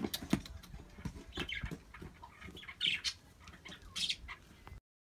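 Birds chirping in short calls a few times, with scattered light clicks and rustling. The sound cuts off suddenly near the end.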